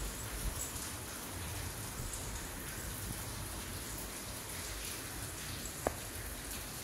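Steady heavy rain, an even continuous hiss, with a single short tap about six seconds in.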